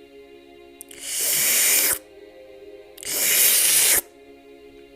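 An animal hissing twice, each hiss a long noisy breath of about a second that cuts off sharply, about two seconds apart, over soft background music.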